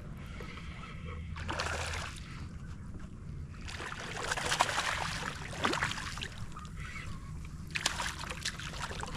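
Water splashing and sloshing in irregular bursts: a short burst about a second and a half in, a longer stretch from about four to seven seconds, and more near the end.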